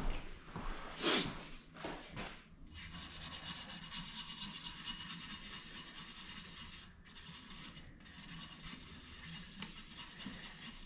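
Hand sanding with fine-grit sandpaper: a few short rubbing strokes, then from about three seconds in a steady fine rubbing hiss with two brief pauses, smoothing out a scraped spot.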